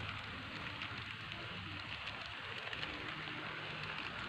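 N-scale model passenger train running along its track: a steady rattling hiss of small wheels rolling over the rails, with a faint hum from the locomotive's motor.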